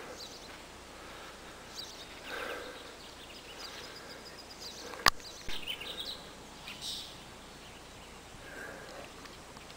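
Outdoor ambience with faint, scattered bird chirps, and a single sharp click about halfway through.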